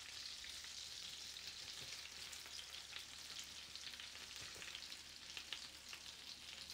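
Melted butter sizzling with fine crackles in a frying pan, as ground coconut powder is poured into it.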